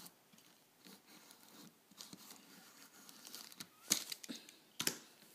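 Faint rustling and crinkling from a die-cast toy car being handled and turned over on a crinkly plastic surface. There are a few sharp clicks and scrapes, the loudest about four and five seconds in.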